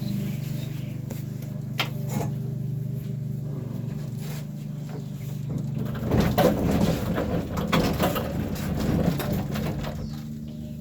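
A steady low hum runs throughout. A couple of sharp knocks come about two seconds in, and past the middle there are about three seconds of louder rumbling and knocking as a piano is shifted across the floor.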